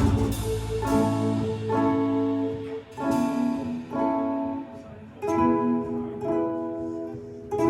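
Live band music: the full band's sound dies away in the first second, leaving a guitar playing slow chords, about one a second, each left to ring and fade. No singing.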